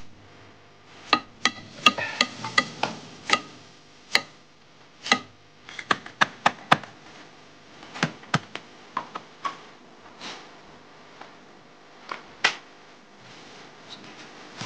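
Large knife chopping red onions on a chopping board: quick, irregular sharp strikes for the first six or seven seconds, then a few scattered knocks and taps.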